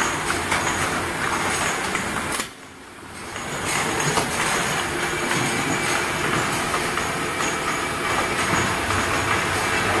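Automatic ultrasonic bottle washing machine running with a steady mechanical clatter and hiss. The sound drops away sharply about two and a half seconds in, then builds back up over about a second.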